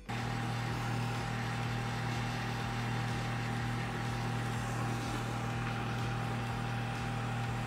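Steady low hum and constant hiss of a workshop ventilation fan running together with a Smith Little Torch's rosebud flame melting silver in a crucible.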